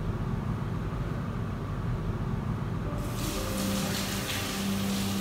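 A steady low room hum, then about three seconds in a bathroom sink tap starts running as hands are washed under it.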